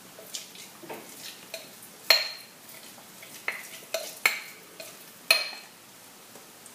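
Metal teaspoon stirring and scraping through thick chia pudding in a stemmed wine glass, with several sharp clinks of spoon against glass that ring briefly, the loudest about two, four and five seconds in.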